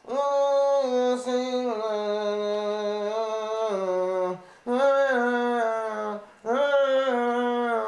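Male voice humming a wordless melody in three long held notes, each stepping down in pitch toward its end, with short breaks between them.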